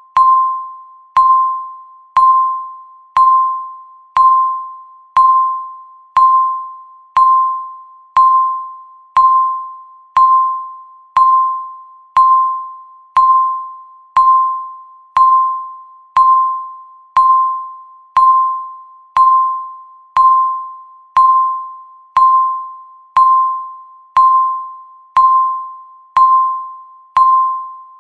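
Countdown timer's per-second beep: one short tone each second, each starting sharply and fading away before the next.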